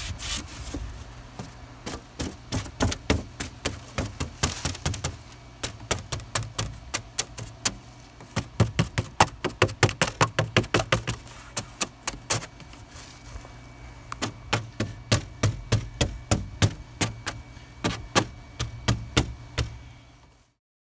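Runs of quick, sharp knocks, several a second, with short pauses between runs, from work on a wooden 2x4 enclosure frame. The sound cuts off just before the end.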